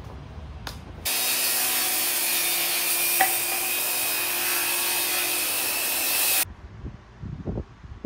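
Circular saw cutting across the ends of the 2x6 tabletop boards, trimming the table to length. It starts suddenly about a second in, runs steadily under load for about five seconds, and stops suddenly.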